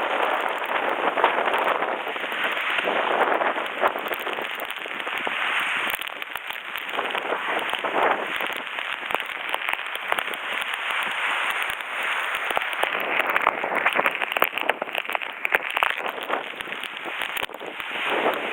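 Heavy typhoon rain pouring and splashing on surfaces, with many small patters. It swells and eases every few seconds.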